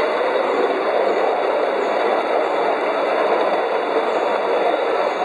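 Double-headed 5-inch gauge garden railway train running along the track: a steady, even rolling rumble of the wheels on the rails.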